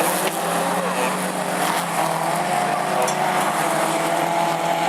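Autograss race cars running flat out on a grass track, their engines revving with the pitch rising and falling.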